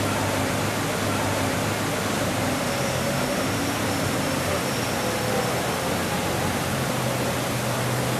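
Steady rushing of water cascading down a fountain's steps, with a faint low hum underneath that shifts in pitch now and then.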